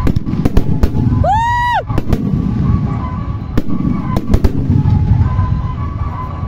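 Fireworks display: aerial shells bursting in a rapid, irregular string of sharp bangs over a continuous low rumble. About a second in, a short tone rises, holds and falls.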